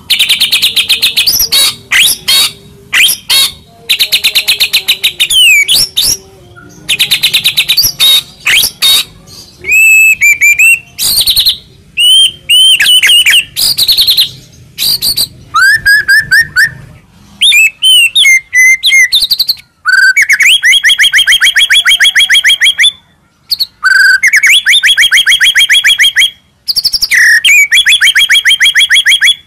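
White-rumped shama (murai batu) singing loudly in a fast, varied string of phrases: chattering rattles and slurred whistles, then several long, rapid trills with short breaks between them. The song is packed with mimicked phrases of other birds, the 'isian' filler that this training recording is meant to teach.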